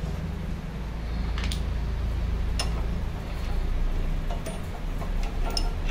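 A few light clicks as the clamping nut is threaded by hand onto the spindle of a cut-off saw, over a freshly fitted abrasive wheel, with a steady low hum underneath.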